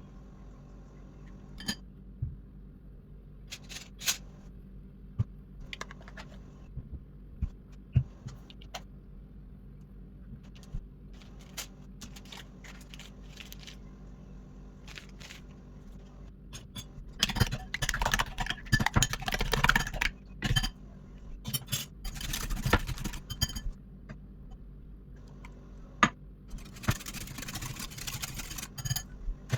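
Kitchen utensils and dishes being handled: scattered clinks, taps and knocks, with two stretches of a few seconds of continuous scraping or rustling, one a little past halfway and one near the end.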